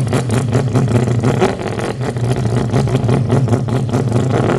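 Engine running steadily: a low hum with a fast, even pulsing.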